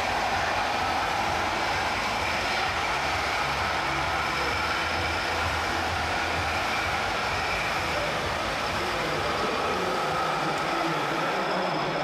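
Steady rumbling vehicle noise, the engine sound of a radio-controlled heavy-haulage truck model driving slowly, holding an even level throughout.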